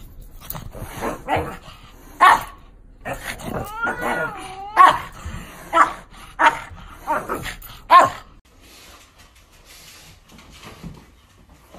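Small dog barking and whining: a string of short, sharp yips with a drawn-out wavering whine about four seconds in. The calls stop about eight seconds in.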